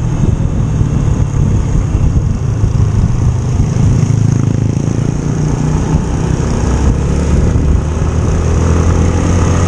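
Yamaha scooter engine running steadily while riding at road speed, with an even low hum and road noise.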